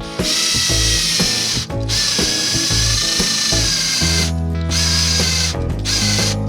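Electric power tool motor running with a high whine, cutting out briefly about two seconds in and again past the four-second mark, over background music with a changing bass line.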